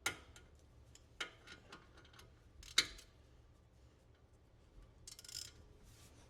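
Sharp metallic clicks and knocks of hand tools and brake caliper parts being handled. The first comes right at the start, another about a second in, and the loudest near three seconds, followed by a short rustle around five seconds.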